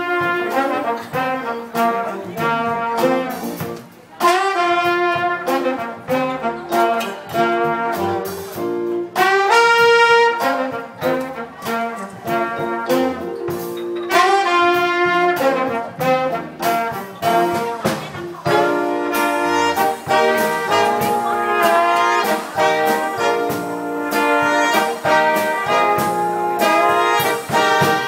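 Live jazz band playing an instrumental: saxophone, trumpet and trombone over keyboard, bass guitar and drums. The horns come in together on held notes a few times, with drum strikes throughout.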